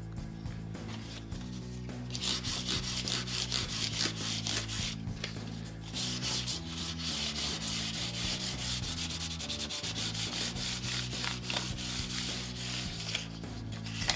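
Fine-grit sandpaper rubbed back and forth by hand over the frets of a 1965 Hofner 500/1 bass neck, polishing the fret tops after levelling and crowning. The quick rubbing strokes start about two seconds in, pause briefly around the middle, and stop shortly before the end.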